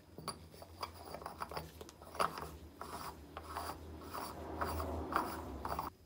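Brass cap of a large brass lighter being turned down onto its threaded body by a gloved hand: a run of short metal-on-metal rubbing strokes, about two a second, that stop suddenly near the end.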